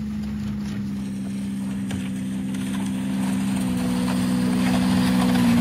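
Ski-Doo snowmobile engine running at a steady pitch, growing louder as the machine comes closer.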